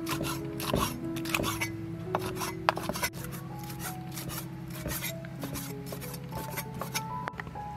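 Cleaver chopping meat on a thick wooden chopping board: a quick run of knocks for the first three seconds or so, then sparser strikes. Background music with steady held notes plays throughout.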